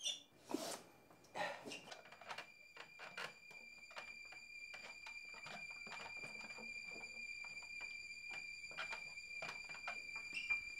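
Scattered faint knocks and thuds of someone climbing a wooden ladder, under a steady, thin high-pitched whine that comes in about two seconds in and holds.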